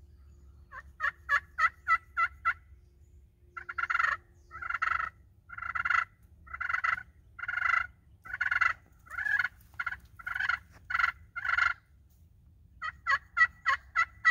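Hand-held pot (slate) turkey call scraped with a striker, imitating a hen turkey. A quick run of about six short notes comes first, then a slower series of about a dozen longer yelping notes, then another quick run of short notes near the end.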